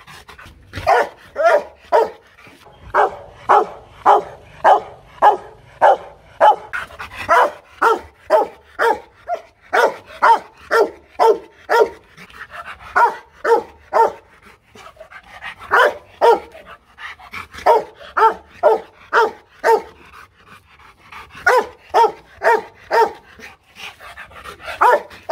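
Rottweiler barking over and over in quick runs, about two barks a second, with a few short pauses.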